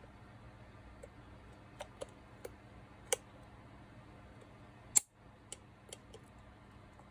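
Small metallic clicks and ticks from circlip pliers working the retaining ring on an angle grinder's gearbox spindle. One sharp, louder click comes about five seconds in, with a few lighter clicks around it.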